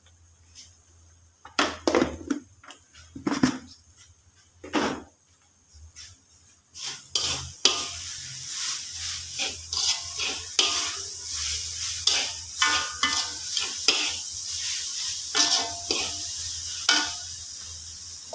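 Slotted metal spatula scraping and stirring grated coconut in a thin metal wok: a few separate scrapes at first, then from about seven seconds in steady stir-frying, with a high sizzle under quick repeated scrapes against the pan.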